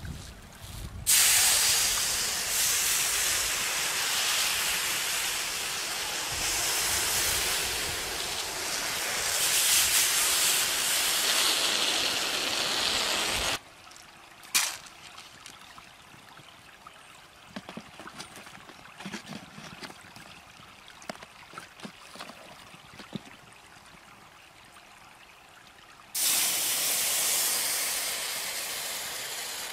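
Fire-heated rocks sizzling and hissing as they are lowered into soup water held in a deer hide, boiling it. A loud hiss starts about a second in and stops suddenly about halfway, followed by a quieter stretch with small knocks, and a second hot rock hisses near the end.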